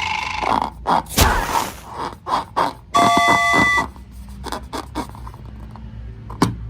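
A string of short clicks and squishy smacks, with a brief steady chime lasting under a second about three seconds in.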